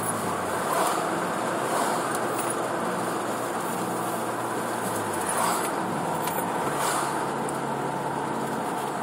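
Hyundai Veloster Turbo's 1.6-litre turbocharged four-cylinder with a Magnaflow 12886 muffler cruising quietly at a little over 2,000 rpm. It is heard through the open driver's window as a low, steady engine hum under tyre and wind noise.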